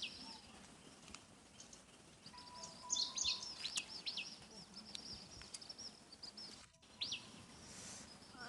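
Small birds chirping in quick high-pitched clusters, loudest about three seconds in and again near the end, over faint outdoor background noise.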